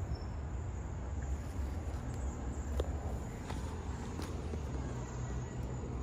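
Garden ambience: a steady low rumble under faint, steady insect chirping, with a few soft ticks.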